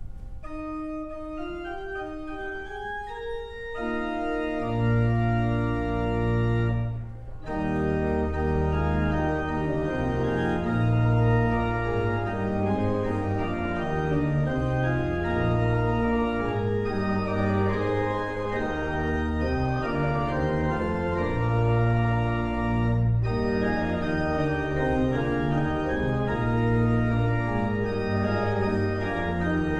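Church pipe organ playing a postlude. A single melodic line opens, then full chords with a deep pedal bass come in about four seconds in, with a short break near seven seconds before the playing goes on.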